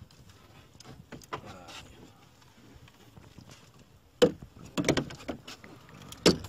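Faint scattered clicks, then from about four seconds in a run of loud, sharp knocks and clunks of hard objects striking one another.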